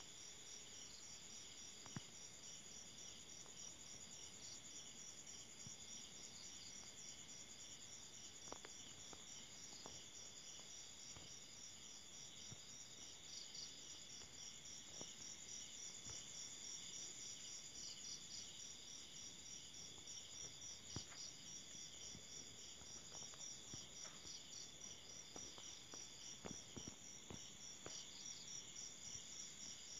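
Crickets and cicadas calling together in a steady night chorus, a fast, high-pitched pulsing trill that never stops.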